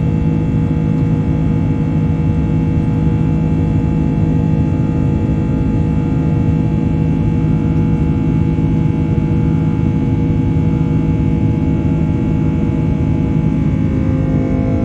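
Jet engines of an Airbus A330-343 heard from inside the cabin: a loud steady roar with a strong low hum and several steady tones. Near the end a few of the tones start to rise in pitch.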